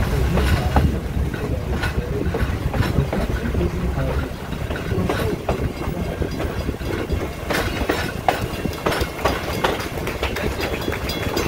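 Passenger train car rolling along the track, its wheels clicking and knocking over the rails with a low rumble that eases about four seconds in.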